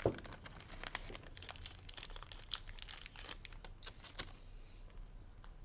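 Hands handling small plastic pieces: a knock at the start, then a run of irregular light clicks and crackles that die away about four and a half seconds in.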